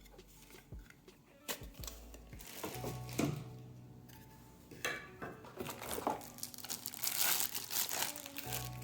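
Plastic packaging crinkling and rustling in irregular bursts, loudest about seven seconds in, as a vacuum attachment is handled and unwrapped. Soft background music underneath.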